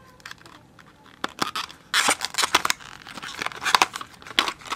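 Rustling, scraping and clicking of packaging being handled as a small white video stand is pulled out of a black box insert. A few faint clicks at first, then about two seconds in a busy run of short rustles and sharp clicks.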